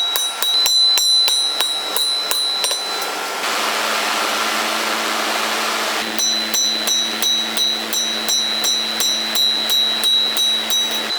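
Hammer blows on steel over an anvil, about three a second, each strike ringing high and metallic. For a couple of seconds in the middle the blows stop and a steady rushing noise takes over; a low hum starts with it and carries on under the hammering once it resumes.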